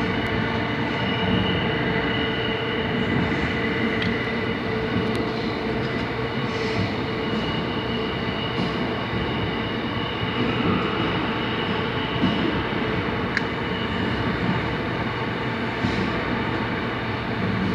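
Seoul Subway Line 9 express train running at steady speed, heard from inside the car: a continuous rumble of wheels on rail with a steady whine over it and a few sharp clicks.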